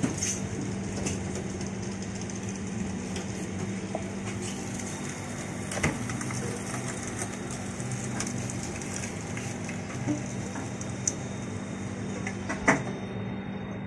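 A machine's motor humming steadily, with a few sharp clicks and knocks, the loudest about six seconds in and near the end.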